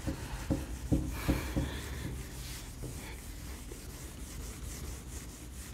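Marker drawing being wiped off a whiteboard with a bare hand: repeated rubbing strokes of the palm across the board, with a few short knocks in the first two seconds.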